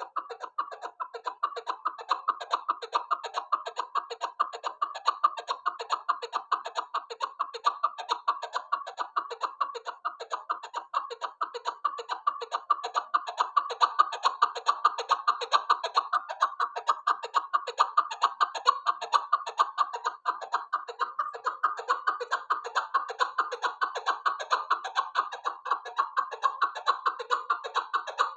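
Male chukar partridge calling: an unbroken, rapid run of clucking notes, several a second.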